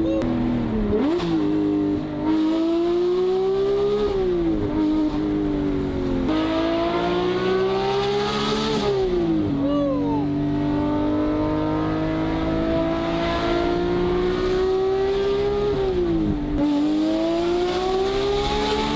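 Porsche 991.2 GT3's naturally aspirated 4.0-litre flat-six, breathing through a Valvetronic Designs aftermarket exhaust, pulling hard through the gears. The engine note climbs steadily and then drops sharply at each upshift, about four times.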